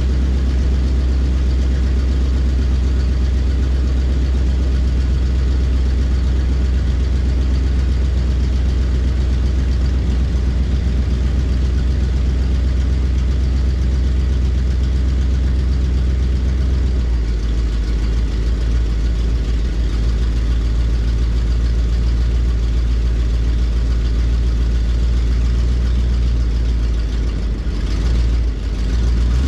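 GMC motorhome's V8 engine idling steadily, its low note shifting slightly a little past halfway.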